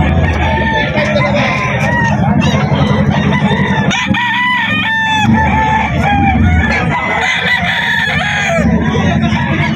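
Many gamefowl roosters crowing over one another at different pitches, with a steady low rumble underneath.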